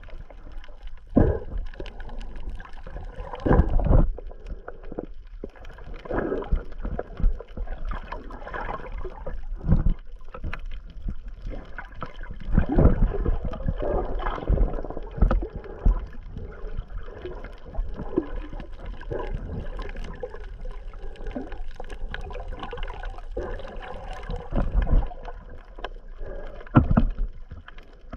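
Water sloshing and gurgling around a camera held underwater, heard muffled, with irregular knocks and surges of noise every few seconds.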